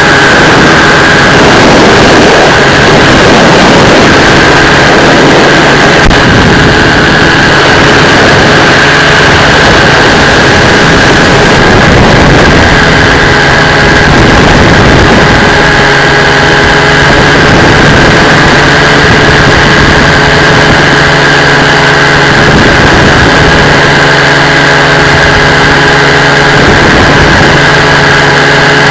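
Drift X170 powered parachute's engine and propeller running steadily and loud on the landing approach, with little change in pitch.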